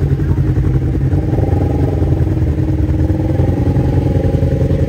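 An engine running steadily at an even speed, low-pitched with a fast, even pulse.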